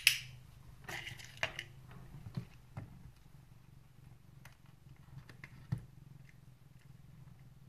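A sharp click right at the start, then soft rustling and a few light taps as the cat shifts off its fleece-covered chin rest, over a low steady hum.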